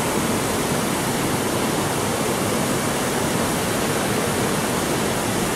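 Steady rush of water cascading down the terraced concrete steps of a large outdoor fountain.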